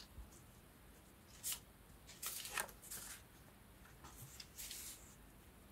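Paper being handled: three short rustles of sheets sliding and being moved about.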